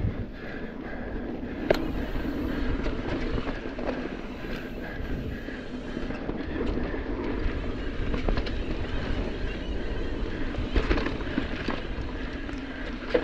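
Mountain bike rolling fast down a dirt trail: tyres on the ground with the chain and frame rattling and clattering over roots and bumps, a sharp knock about two seconds in and a burst of knocks near the end.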